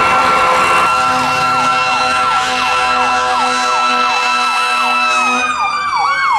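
Fire truck sirens. A mechanical Q siren holds a steady high whine, then begins to wind down in pitch about five seconds in. Over it, an electronic siren repeats fast sweeps, two to three a second.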